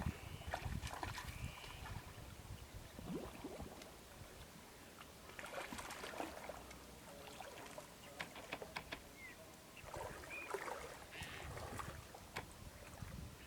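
Shallow paddy water splashing and sloshing in irregular bursts, with a few sharp clicks and short high chirps.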